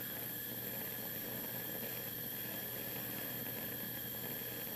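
Steady even hiss of a lit Bunsen burner's gas flame, holding level throughout.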